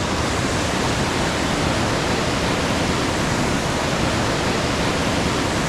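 River rapids rushing steadily over rocks below a footbridge, the river running high with snowmelt.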